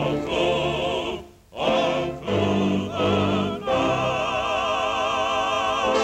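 Operatic-style singing with orchestral accompaniment from a cartoon soundtrack. A short break comes about a second and a half in, then the voices hold a long final note with wide vibrato.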